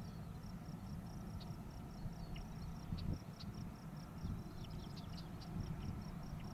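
Outdoor field ambience: an insect chirping steadily at about five pulses a second over a low rumble, with a few brief higher chirps scattered through.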